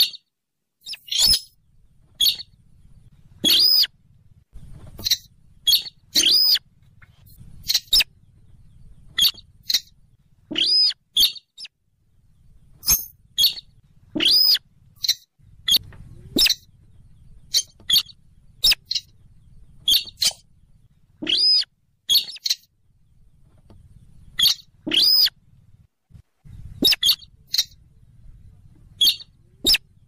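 Buff-banded rail (sintaran sawah / weris) calls played as a bird-lure recording: a long series of short, sharp, squeaky notes, each quickly rising and falling in pitch, coming in irregular groups a half second to a second or so apart.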